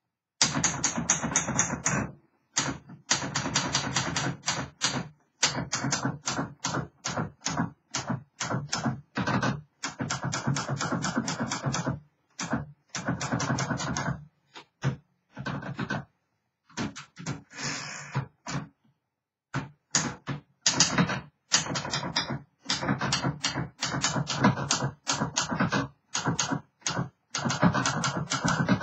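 1960s Remington Rem-Riter typewriter being typed on: runs of rapid key strikes broken by short pauses.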